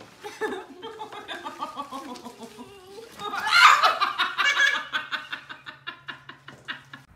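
Hearty laughter that swells to its loudest about halfway through, then trails off in quick, short bursts.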